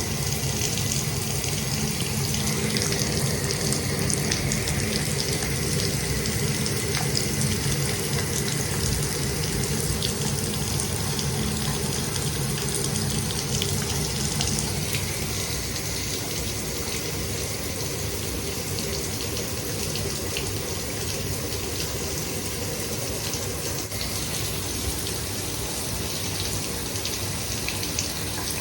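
Shower running steadily, water spraying and splashing down; it gets slightly quieter about halfway through.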